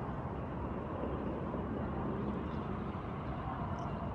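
Road traffic: a steady rush of car noise, swelling a little about two seconds in.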